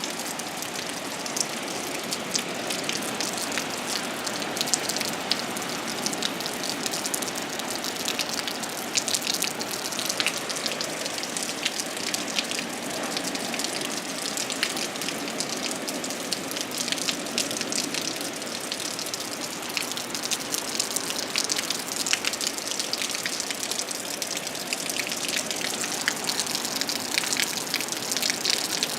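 Heavy rain falling steadily, a dense patter of drops hitting surfaces.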